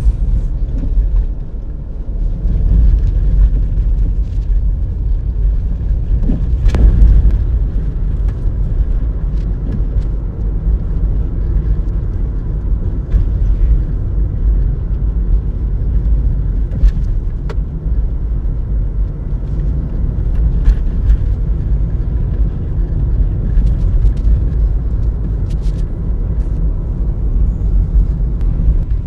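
A steady low rumble, with a few light clicks and taps from small A/C parts being handled.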